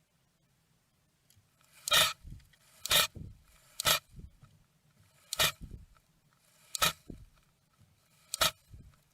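Blue tit giving its defensive hiss, a sharp sneeze-like burst repeated six times about one to one and a half seconds apart, each followed by a few softer low knocks. This is the bird's threat display against a perceived intruder.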